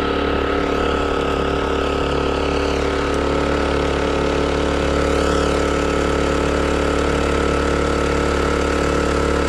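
Small 4-horsepower Chinese outboard motor running steadily under way, pushing a canoe along at a constant pitch.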